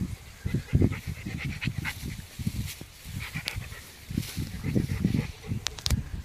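Wind buffeting the microphone in irregular low gusts, with a couple of sharp clicks near the end.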